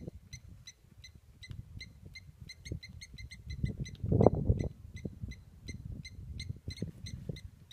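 A bird calling: a long series of short, high piping notes, a few a second, quickening for about a second near the middle. A louder low rumble swells about four seconds in.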